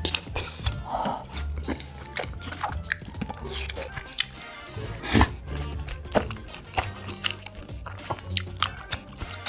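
Close-up eating sounds: biting and chewing cheese-covered tteokbokki rice cakes, heard as many short sharp clicks, one louder about five seconds in, over background music with a steady bass line.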